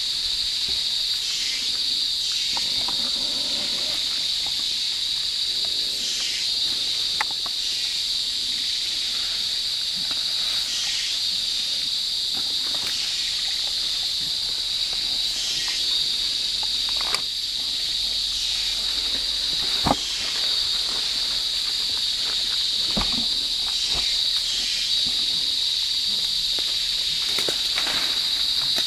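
Rainforest insect chorus: a loud, steady, high-pitched drone, with another call swelling and fading every few seconds. A few sharp snaps stand out, the clearest about two-thirds of the way in.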